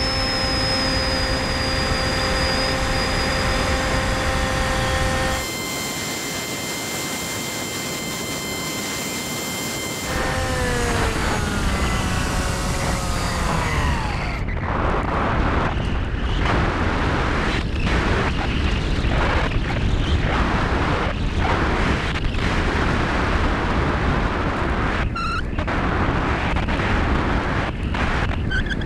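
Bixler 2 RC plane's electric motor and pusher propeller whining steadily, heard through the onboard GoPro. About ten seconds in the whine falls in pitch as the motor slows. From about fourteen seconds on, gusty wind rushing over the camera takes over.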